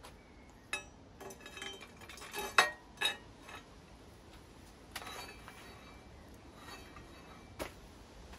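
Small metal bicycle headset parts clinking and tapping as they are handled and fitted at the frame's head tube: a run of sharp, irregular clinks, the loudest about two and a half seconds in, with a few more scattered later.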